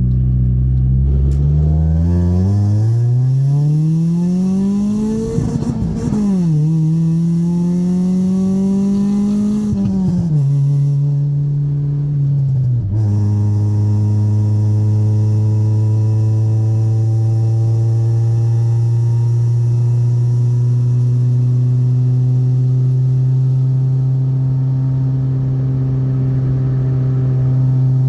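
Honda EK Civic four-cylinder engine and raspy aftermarket exhaust pulling hard through the gears, the pitch climbing and falling back at each shift about six and ten seconds in, then settling to a steady cruise from about thirteen seconds on.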